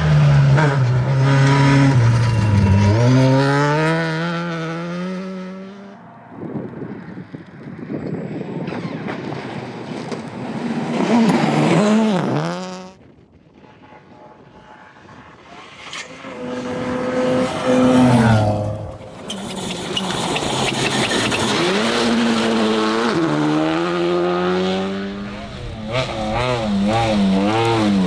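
Rally car engines revving hard and rising and falling through gear changes as the cars run flat out on a stage, in several separate passes. The engine noise dies away briefly about halfway through, then another car comes through.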